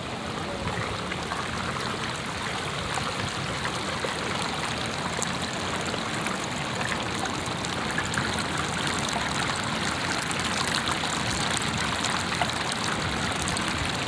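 Water flowing and trickling along the stone edge of a shallow fountain channel, a steady rush that grows a little louder toward the end.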